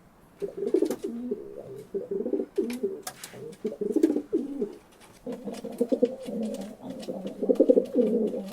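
Several pigeons cooing over one another, their low calls overlapping, with a brief lull about five seconds in. Scattered sharp clicks and taps sound among the cooing.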